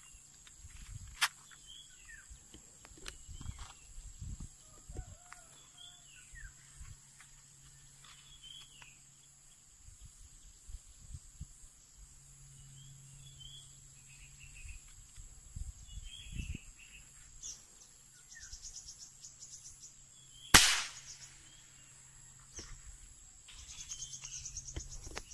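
A red toy spring-loaded matchstick gun clicking faintly as it is loaded and cocked, then firing once about twenty seconds in with a single sharp snap. Birds chirp and an insect drones steadily in the background.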